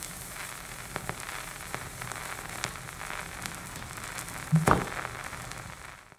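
Vinyl record surface noise from a stylus riding the groove: a steady hiss with scattered crackles and clicks, one louder pop about four and a half seconds in. It fades away at the end.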